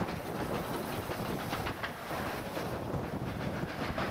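A 15-inch gauge miniature steam locomotive and its coaches running along the track, with a steady rumble and irregular clicking of the wheels on the rails.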